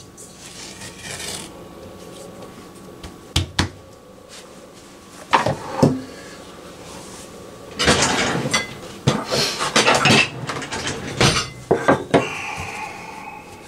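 Dough being handled on a floured countertop, with a stainless steel mixing bowl knocked about: a few separate knocks, then a busy stretch of rubbing, patting and pressing as the dough is worked flat by hand.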